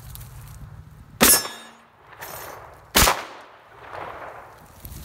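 Winchester 101 over/under 12 gauge shotgun firing 00 buckshot: two loud shots, one from each barrel, a little under two seconds apart, each trailing off in a short echo.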